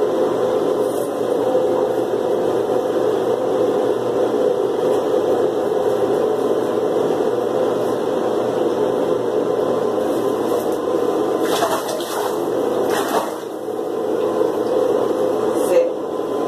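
Water running steadily from a bathtub faucet, with a few brief clatters or splashes about two-thirds of the way through.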